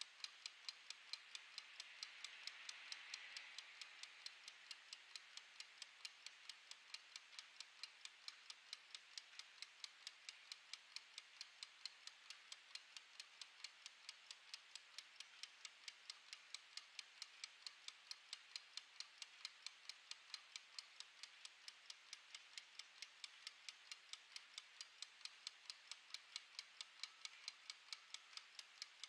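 Clockwork mechanical kitchen timer with a plastic case, ticking steadily and evenly as it runs down. A faint hiss swells briefly a couple of seconds in.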